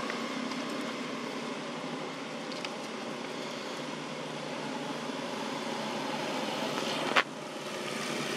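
Steady hum of distant motor traffic, with a single sharp click about seven seconds in.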